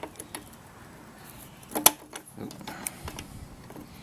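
Small metallic clicks and ticks of needle-nose pliers working the pad pins out of a motorcycle's rear brake caliper, with one sharp, louder metal click a little under two seconds in.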